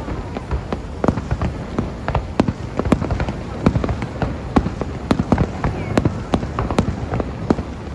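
Fireworks going off: an irregular, rapid string of sharp pops and crackles, several a second, over a low rumble.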